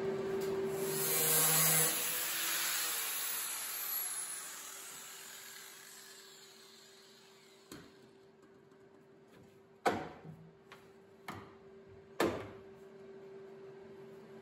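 Grinder with a sanding pad working the edge of a steel patch panel for about two seconds, then switched off and spinning down with a falling whine. Three sharp knocks follow in the second half.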